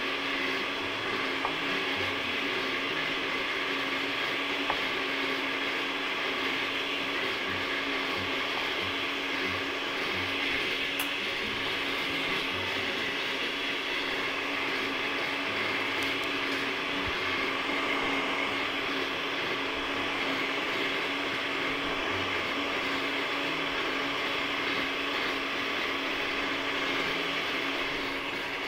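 Steady machine hum with a constant low tone, with a few faint clicks over it.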